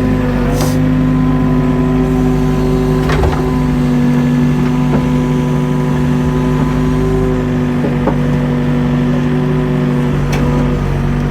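Mini excavator's diesel engine running at a steady speed, with a few sharp knocks scattered through.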